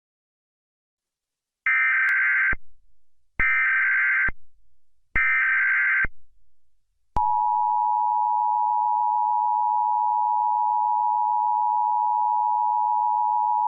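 Emergency Alert System broadcast: three identical buzzy digital header bursts about a second apart, each about a second long, then a loud steady attention-signal tone beginning about seven seconds in. It heralds a National Weather Service tornado warning.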